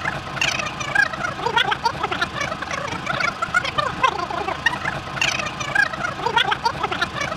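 A man's voice sped up into fast, high-pitched chattering, with no words that can be made out.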